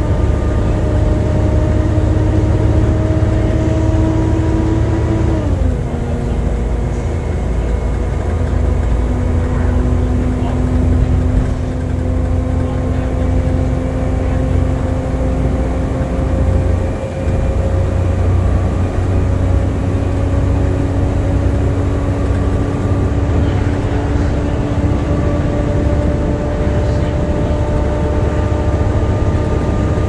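Volvo B7TL bus's D7C six-cylinder diesel and transmission heard from inside the saloon under way: a low rumble with a hoover-like whine that climbs slowly as the bus gathers speed, falls sharply at an upshift about five seconds in, then climbs again, with a brief lull near the middle.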